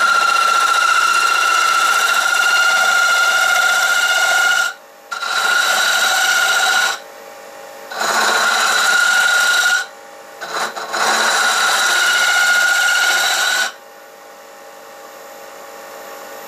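A hand-held turning tool cutting across the face of a spinning wooden blank on a wood lathe, flattening it. The cutting comes in four passes with short breaks between them, and a steady high-pitched whine rides on each pass. Near the end only the lathe's fainter running hum remains.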